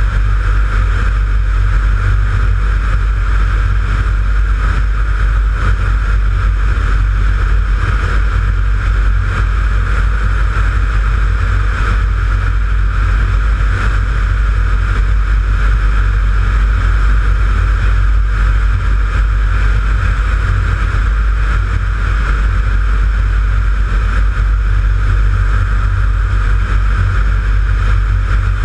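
Jabiru light aircraft's engine and propeller running steadily in low flight, mixed with heavy wind rush on an outside-mounted camera.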